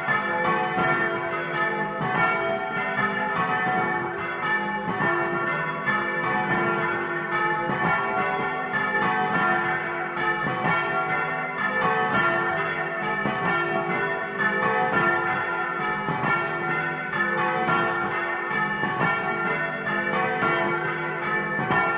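Several bronze church bells swung high by hand from ropes, their strokes overlapping in quick succession in a continuous festive peal announcing the Resurrection, heard close up inside the belfry.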